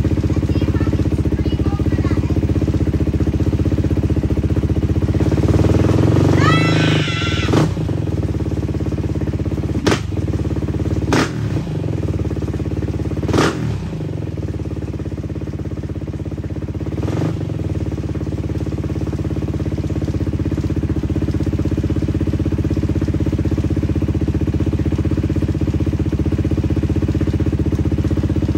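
Beta 500 RR-S dirt bike's single-cylinder four-stroke engine running on a stand through a freshly fitted FMF exhaust, idling steadily. About six seconds in it is revved up by hand, then the throttle is snapped open in short sharp blips about ten, eleven, thirteen and a half and seventeen seconds in before it settles back to idle.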